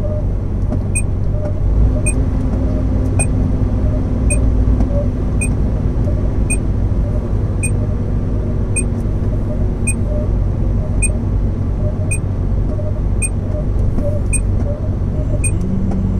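Truck engine running steadily with road rumble while driving, heard from inside the cab. A short, sharp tick repeats evenly about once a second.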